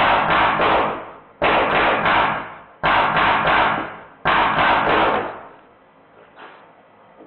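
Drozd Blackbird BB gun, powered by compressed air from an 800 psi HPA tank and fitted with a Sergey board, firing four short bursts of rapid shots about a second and a half apart, with the BBs striking the target.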